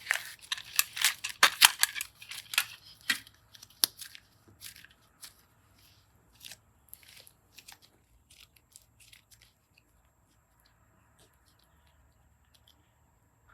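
Close handling noises from small craft materials: a quick run of sharp crackles and clicks that thins out after about four seconds and dies away to near silence near the end.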